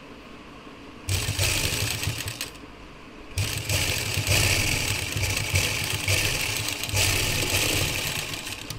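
Black domestic sewing machine stitching a seam: a short run starting about a second in, a brief pause, then a longer steady run that stops near the end.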